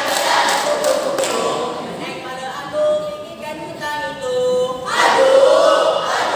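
Group of students in a choral-speaking performance, voicing in unison without instruments, with a few sharp thumps near the start. In the middle the voices thin to a softer sung line of held notes that step down, and about five seconds in the full group comes back in loudly.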